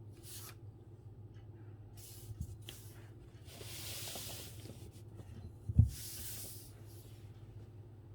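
Calligraphy brush sliding across paper in several soft, hissing strokes of about a second each. There is a low knock just before the last stroke, the loudest sound here.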